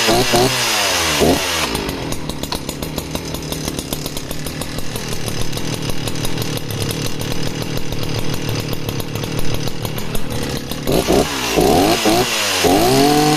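Sachs Dolmar 119 61cc two-stroke chainsaw engine blipped through a series of quick revs. It then settles into a slow, lazy thumping idle for most of the time, before more quick throttle blips near the end.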